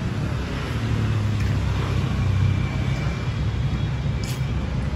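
Road traffic: a motor vehicle passing on the street, its low engine hum swelling about a second in and fading again over a steady haze of road noise.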